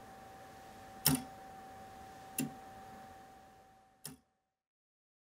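Gothic wrought-iron foliot-balance clock's verge escapement ticking slowly, one sharp tick a little over a second apart, three ticks in all, over a faint steady ringing tone. The sound fades and cuts off shortly after the last tick, about four seconds in.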